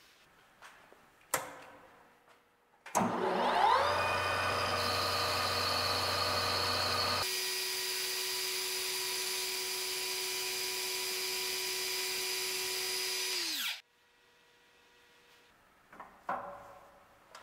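Wasino LR-55A lathe spindle starting up with a rising whine about three seconds in, running at a steady pitch while the insert turns the metal pin, then winding down with a falling whine. A sharp click comes before it starts, and a couple of clicks follow after it stops.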